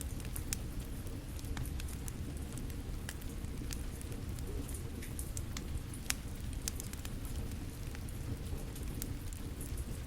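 Fire crackling with rain falling: a steady, dense rush of rain under frequent, irregular sharp crackles and pops.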